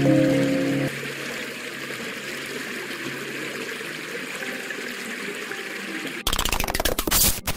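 Underwater ambience for an animated scene: a steady, even hiss of moving water, after a few music notes fade out about a second in. About six seconds in, a loud, rapid crackling rattle cuts in.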